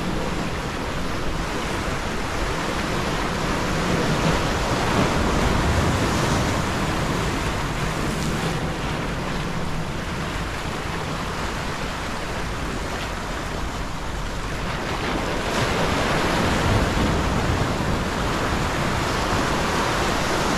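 Sea surf breaking and washing over shore rocks, with wind buffeting the microphone. The wash swells louder about four seconds in and again a little past the middle.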